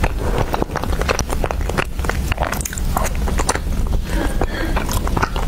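Close-miked chewing of a chewy chocolate-coated dessert with a soft chocolate centre: a quick run of small mouth clicks and smacks over a steady low hum.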